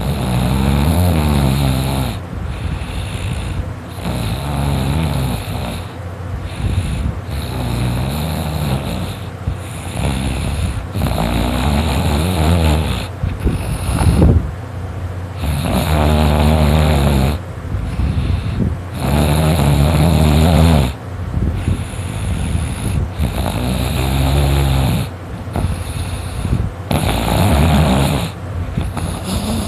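A sleeping person snoring really loudly, one long pitched snore on each breath, about one every three to four seconds.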